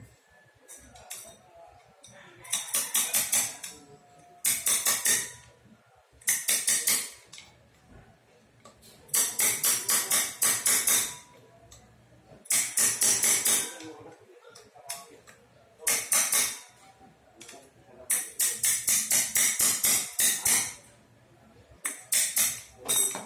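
Hand ratchet wrench clicking in about eight bursts of quick metallic clicks, each one to two seconds long with short pauses between, as bolts at the brake disc and hub of a motorcycle front wheel are worked loose.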